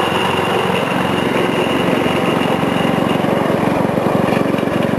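Task Force riding lawn mower's engine running steadily, its firing pulses even, with a faint steady high whine over it.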